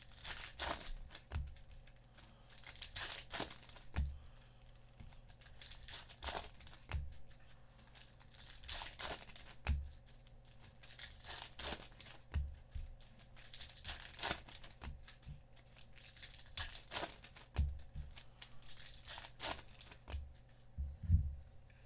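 Plastic wrapping on trading-card packaging being torn and crinkled by hand in repeated bursts, with occasional light knocks from handling.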